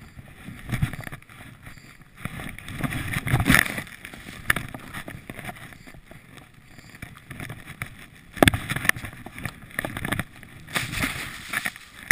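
Skis cutting through deep powder snow: irregular rushing surges of snow with a few sharper hissing peaks as the skier turns.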